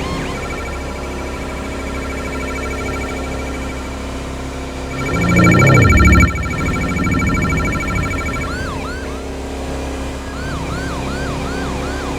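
Police siren changing tones: a rapidly pulsing two-pitch tone for about eight seconds, with a loud low rumble about five to six seconds in, then a fast yelp of quick, repeated swooping tones.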